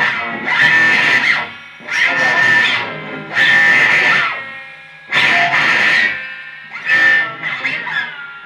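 Amplified acoustic guitar struck in hard, loud strums about every one to two seconds, each chord ringing out and fading before the next, with a few sliding pitches.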